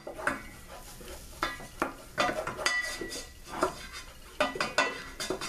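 Wooden spoon stirring a roux of fat and flour in a nonstick pot, scraping across the pot's bottom in quick, irregular strokes, some with a faint squeak, while the roux cooks until the flour takes on colour.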